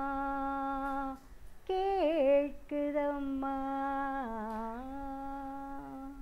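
A woman's solo voice singing unaccompanied, drawing out a long vowel in a Tamil devotional song. She holds one note, breaks off about a second in, sings a short wavering run, then holds a long note that dips in pitch and returns.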